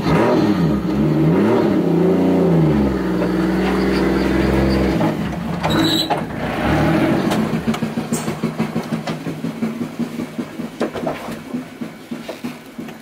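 Turbocharged 2JZ-GTE VVTi straight-six in a Nissan 240SX revved up and down a few times, held at higher revs, then let drop back about five seconds in. It then settles low, with an even pulsing that slows and fades.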